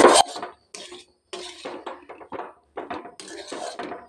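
Flat metal spatula scraping and knocking against a metal kadai as it stirs a dry spiced potato filling. There is a loud scrape at the start, then a run of short, irregular strokes.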